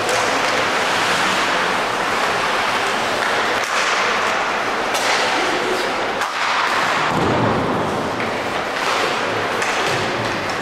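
Ice hockey game sound: a steady rush of rink and crowd noise, broken by several sharp knocks of sticks, puck and boards.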